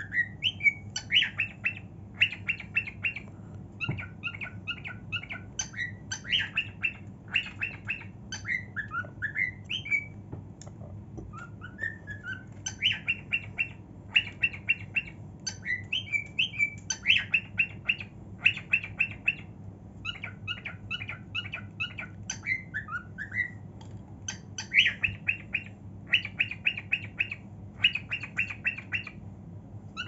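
Cockatiel singing: runs of rapid chattering notes broken by whistled rising and falling glides, with a short pause about ten seconds in.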